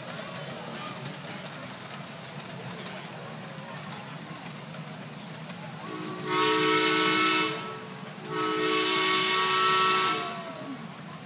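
Miniature steam train's whistle sounding two blasts of several tones at once, a shorter one about six seconds in and a longer one about two seconds later, over the steady noise of the passing train.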